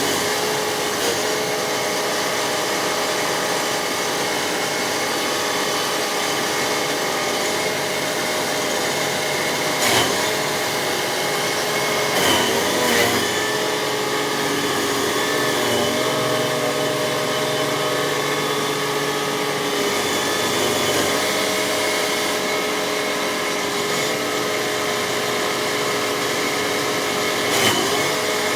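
Vermeer SC48TX stump grinder running steadily while its cutter wheel grinds a stump and roots. The engine's pitch sags briefly a few times as the wheel bites in under load.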